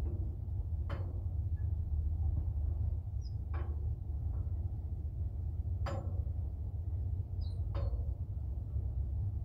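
Four sharp knocks about two seconds apart, from work on the hoist cylinder pin of a Cat 740 articulated dump truck, over a steady low rumble. Short high chirps come between them.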